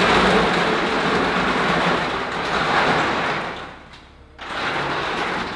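A casket being pushed into a mausoleum crypt: a rough sliding, rolling scrape for about four seconds, then a second, shorter push near the end.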